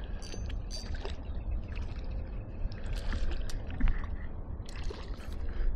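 Hooked carp splashing and thrashing at the water's surface in a series of irregular splashes, over a steady low rumble.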